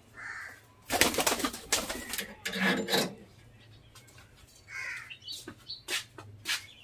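Caged budgerigars calling: short chirps and scratchy chattering bursts, loudest between about one and three seconds in, with a low pigeon coo about two and a half seconds in.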